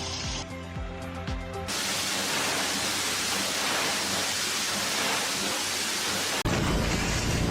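Background music with a beat, then a loud, steady hiss from about two seconds in that cuts off suddenly near the end, where a deeper rumble starts.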